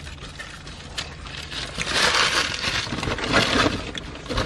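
Paper food packaging rustling and crinkling as it is handled, getting busier about halfway through.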